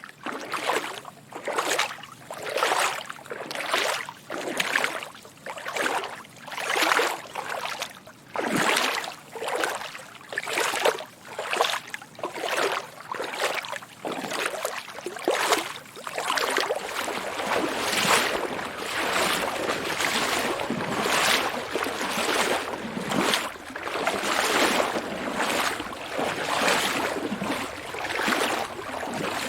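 Footsteps wading through shallow water, each step a splash and slosh, at an even walking pace; from about halfway the splashes come closer together and run into one another.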